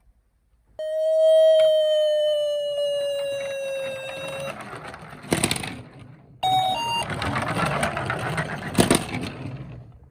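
A single held tone, falling slightly in pitch and fading over about four seconds. Then a rattling roll of small toy cars down a slope, with two sharp knocks a few seconds apart and a short run of electronic beeps between them.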